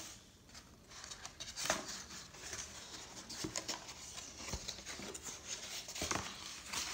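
Corrugated cardboard being handled: rustling and scraping as the flaps of a cardboard record mailer are unfolded and pressed flat, with a few sharper knocks of cardboard against the floor.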